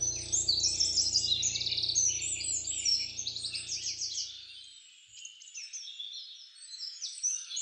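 Many small birds chirping and twittering rapidly over a soft, sustained background music drone, which fades out about halfway through and leaves the birdsong alone.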